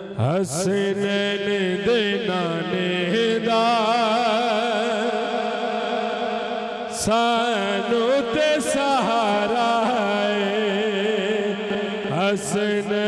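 A man singing a Punjabi devotional naat into a microphone, long melismatic lines with a wide vibrato over steady held tones beneath. He breaks off briefly about seven seconds in and starts a new phrase.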